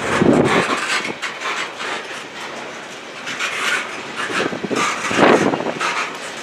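Freight train boxcars rolling past, steel wheels clacking over rail joints over a steady rolling noise. The clatter is loudest just after the start and again about five seconds in.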